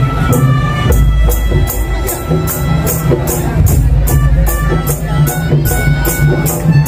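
Madurese daul (tongtong) music played loud by the ensemble on a parade float: heavy drums, sharp percussion strikes about three a second, and a sustained melody line above them.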